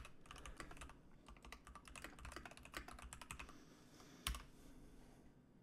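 Faint typing on a computer keyboard: a quick run of keystrokes for about three and a half seconds, then one sharper click just after four seconds in as the question is sent.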